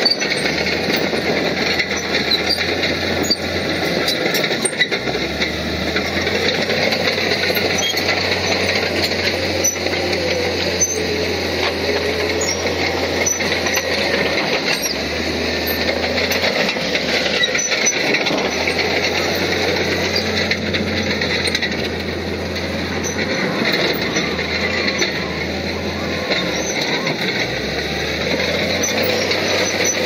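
Heavy diesel earthmoving machinery working: engines running under load, with a low drone that drops out and returns several times as the throttle changes.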